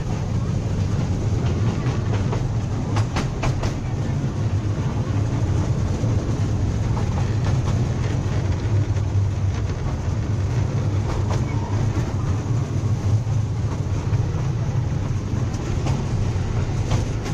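Museum toy train running along its track, heard from on board: a steady low rumble, with a quick run of clicks about three seconds in.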